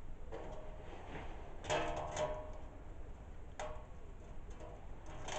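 A few separate light metallic knocks and clinks, each with a brief ringing: two close together about two seconds in, another a little later, and one more near the end.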